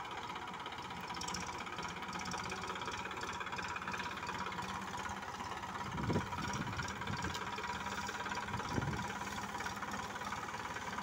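Massey Ferguson 241 DI tractor's three-cylinder diesel engine running steadily under load while pulling a trolley of about 50 quintals of sugarcane. Two short low thumps come about six and nine seconds in.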